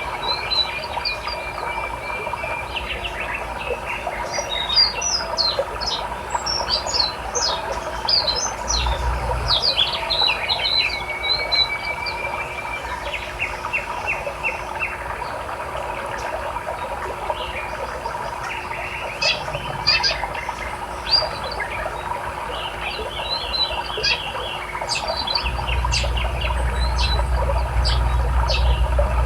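Small songbirds chirping and calling, many short high notes and trills, over the steady rush of a river. A low rumble comes in briefly about nine seconds in and again for the last few seconds.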